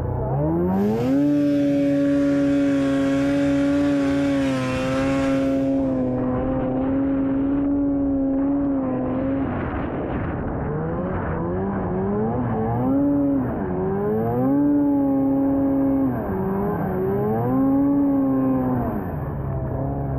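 Two-stroke snowmobile engine revving up fast and holding high, steady revs for several seconds under a rushing hiss. It then eases off and is revved up and down several more times as the sled is ridden.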